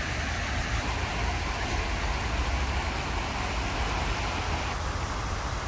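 Steady outdoor background noise in a city park: an even hiss over a low, fluttering rumble.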